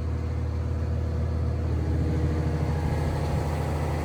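Kobelco SK500 LC-9 excavator's diesel engine idling, a steady low hum.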